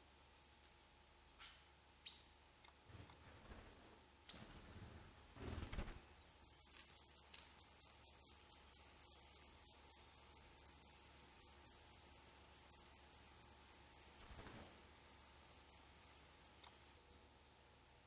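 Black redstart nestlings begging in the nest: a rapid, continuous run of thin, very high chirps, starting about six seconds in and lasting about ten seconds, as a parent arrives with food. Before it, a few soft scuffs and taps from the nest.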